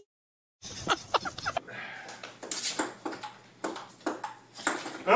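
Table tennis ball clicking against a paddle and a small table tennis table in an irregular rally. The clicks start after about half a second of silence near the start.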